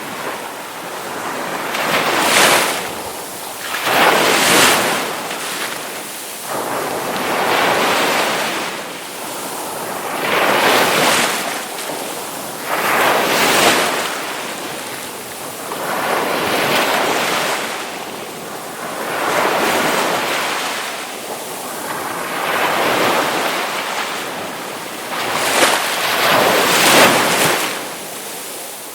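Ocean waves breaking on the shore, a steady wash of surf that swells with each wave about every two to three seconds.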